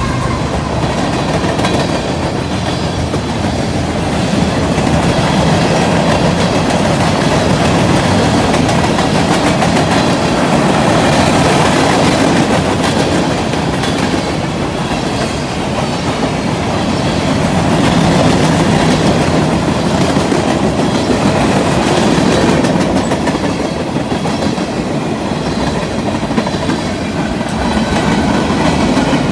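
A long freight train of tank cars, covered hoppers and boxcars rolling steadily past close by, its wheels giving a loud, continuous rumble on the rails.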